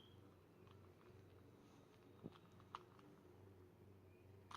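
Near silence with a few faint, short clicks from a Rubik's cube being handled and turned, two of them about half a second apart in the middle and one near the end.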